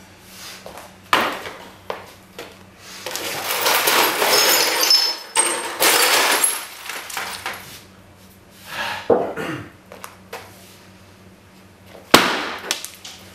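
A painted wooden sculpture of pallets and boards being smashed apart: a single blow about a second in, then a long stretch of breaking and clattering as pieces crash down, a few more blows around the middle and one sharp blow near the end.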